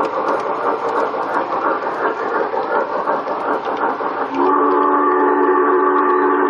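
G-gauge model trains running on the garden railroad track with a steady rumble and clatter. About four seconds in, a sound-equipped model locomotive blows one long chime whistle of several held notes.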